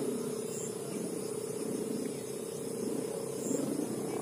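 The hummer (sowangan) on a kite flying overhead, giving a steady drone that wavers slightly in strength.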